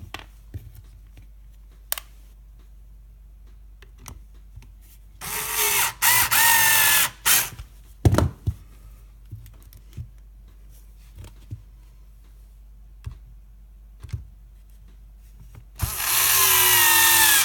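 Small cordless drill driving T15 Torx screws into a dishwasher's plastic diverter valve. The motor runs in two bursts of about two seconds, a few seconds apart, with a whine that drops in pitch under load, and light clicks and handling knocks between them.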